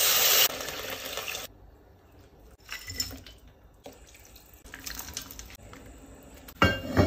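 Soy sauce hitting hot oil and aromatics in an enamelled cast-iron pot, sizzling loudly for about a second and a half, then stopping suddenly. Quieter pours of seasoning and small clinks follow, with a sharp knock near the end.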